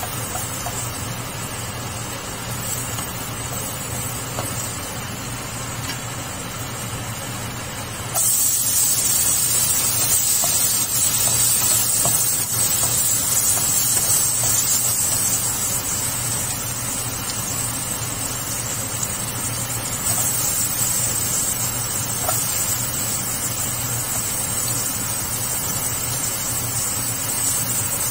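Garlic and ginger sizzling in hot oil in a nonstick frying pan as they are stirred with a wooden spatula. The sizzle gets suddenly louder about eight seconds in. A steady low hum runs underneath.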